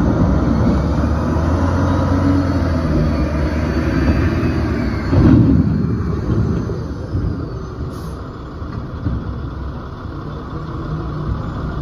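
Large engines running steadily with a deep hum. There is a louder burst of noise about five seconds in, and the sound eases off somewhat after it.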